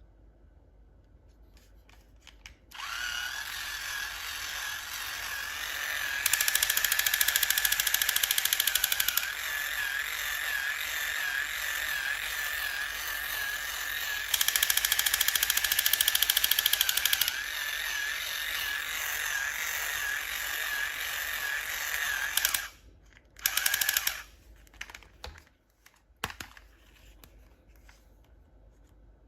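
A small electric motor whirring with a high, slightly wavering whine for about twenty seconds. It grows louder with a fast rattle twice, then cuts off, and runs briefly once more a little later.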